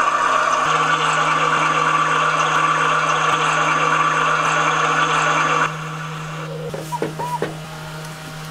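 High-tech toilet's wall control panel playing a steady rushing-water sound that stops abruptly about six seconds in, over a steady low hum; a few short whirring glides follow near the end.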